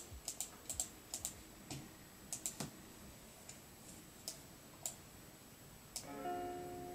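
Laptop keyboard keys clicking in irregular taps, from keyboard shortcuts used to copy and paste clips. About six seconds in, a steady held musical chord begins.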